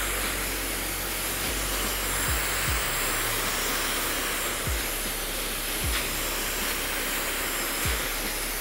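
Dyson Supersonic hair dryer with a concentrator nozzle blowing steadily, likely on high speed, a constant rushing hiss of air. Several low thumps come at uneven intervals.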